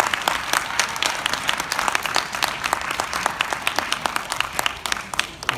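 Audience applauding: dense clapping from many hands in a large hall, dying away at the end.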